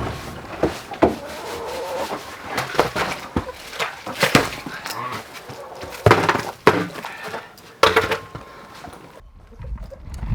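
A string of knocks and clattering with indistinct voices, cutting off abruptly near the end, followed by a low rumble.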